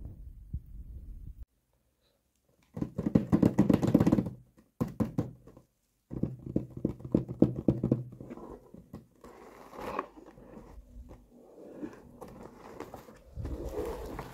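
Fingers tapping, scratching and rubbing on a cardboard box in several bouts of quick taps, the strongest a few seconds in, then lighter scraping as the box is handled.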